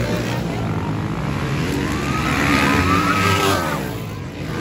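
Motocross dirt bike engines running hard on the track, with one bike revving up in a rising whine for about two seconds that drops off near the end.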